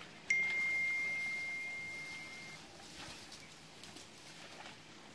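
A single high, pure ping that starts suddenly about a third of a second in and rings out, fading away over about two seconds.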